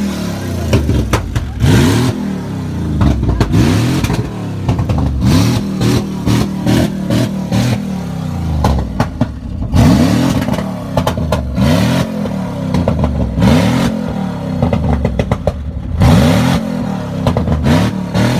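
Pickup truck with a loud exhaust being revved over and over while parked, quick blips of the throttle about once a second that rise and fall in pitch, with a couple of short settles toward idle between bursts.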